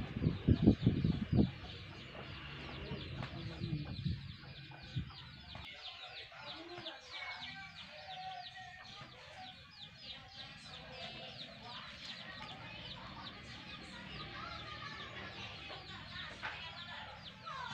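Chickens clucking, with a rapid run of high, evenly repeated chirps of about three a second through most of it. A few dull thumps come in the first second or so.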